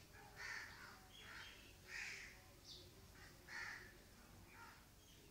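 Crows cawing faintly in the background, a string of about seven short, harsh caws.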